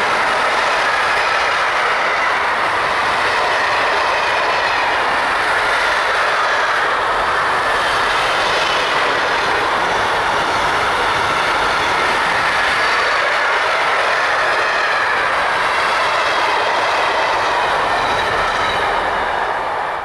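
Freight train of container and tank-container wagons rolling past close by, a loud steady rolling noise of wheels on rail with faint high wavering tones from the wheels. It dies away at the very end as the last wagon passes.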